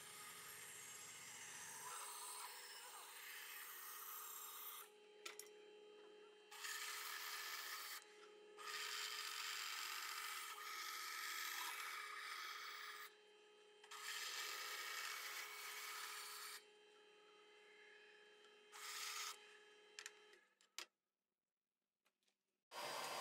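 Bandsaw cutting through a cherry and walnut hardwood block: a faint steady motor hum under the hiss of the blade in the wood. The hiss comes and goes in stretches of a few seconds as the piece is fed, and both stop near the end.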